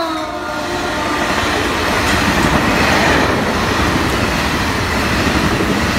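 Caltrain bilevel passenger coaches passing close at speed: a loud, steady rumble and rattle of steel wheels on the rails. In the first half second the tail of the train's horn drops in pitch and fades out.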